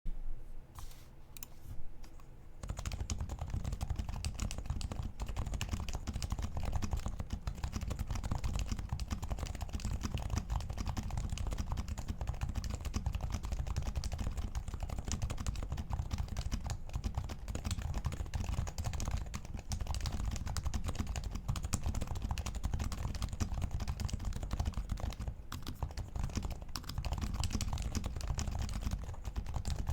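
Typing on an HHKB Professional 2 Type S keyboard with 45 g Topre Type S switches, lubed sliders, a plastic plate and a Poron foam sheet underneath. A few separate keystrokes are followed, about two and a half seconds in, by steady fast typing.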